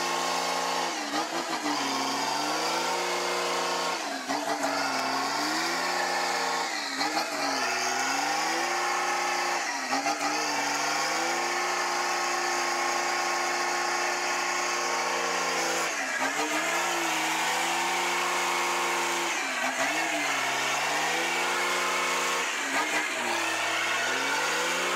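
Truck engine running hard under load, its pitch sagging and climbing back again and again as the mud-bogged truck is pushed.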